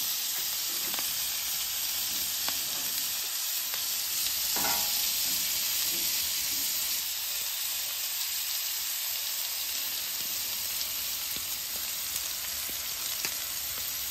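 Diced bell peppers and sliced mushrooms sizzling steadily in bacon grease on a Pit Boss flat-top griddle, with a few brief clicks.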